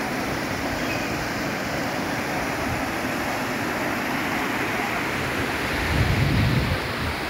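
Steady rushing of a muddy river in flood, its fast brown water pouring over a wide rocky bed. About six seconds in, wind buffets the microphone with a low rumble.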